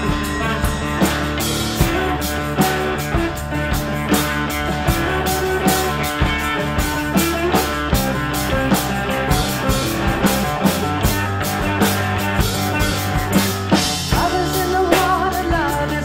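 Live rock band playing an instrumental passage: electric guitars and bass guitar over a drum kit keeping a steady beat.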